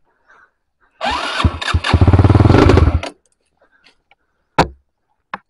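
Trail motorcycle's electric starter cranking the engine in an even rapid pulsing for about two seconds, then cutting off abruptly without the engine running on; the rider puts it down to weak electric power. A single sharp knock follows about a second later.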